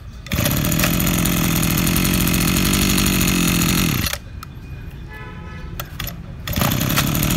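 Used Japanese brush cutter's small petrol engine starts and runs steadily for about four seconds, then winds down and stops. A couple of clicks follow in the lull before the engine fires again and keeps running near the end.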